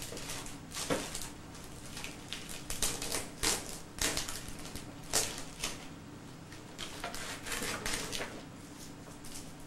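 Gift wrapping paper and packaging crinkling and rustling in irregular crackles as a present is unwrapped by hand.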